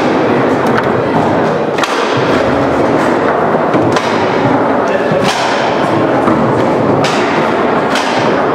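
Leonhart foosball table in play: several sharp knocks of the ball and plastic players being struck and rods hitting the bumpers, over a steady background murmur of voices.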